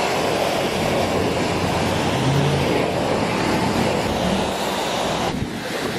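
Steady vehicle noise, a dense rushing hiss over a low rumble, with a brief low hum about two seconds in.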